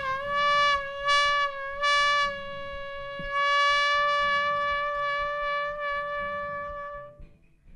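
One long held musical note with a brass-like tone, steady in pitch throughout. It brightens in a few pulses over its first two seconds, is then sustained, and dies away about seven seconds in.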